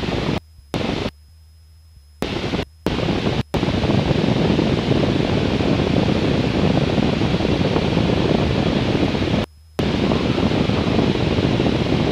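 Steady engine, propeller and wind noise of a single-engine Cessna in flight, heard through the cockpit intercom. It cuts out abruptly several times in the first few seconds, leaving only a faint electrical hum, then runs steadily and drops out once more briefly about three-quarters of the way through, the way an intercom's squelch opens and closes.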